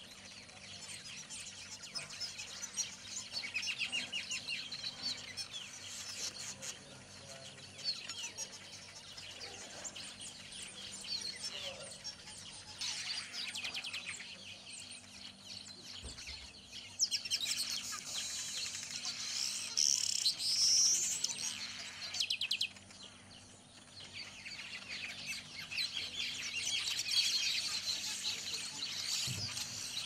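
Weaver birds chattering: many overlapping fast trills and buzzy chirps, loudest about two-thirds of the way through.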